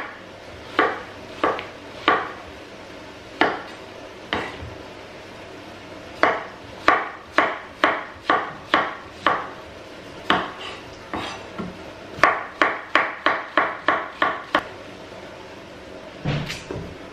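Chef's knife slicing a courgette into thin slices on a wooden chopping board: a run of sharp knife-on-board taps, irregular, in places quickening to about three a second, with a duller knock near the end.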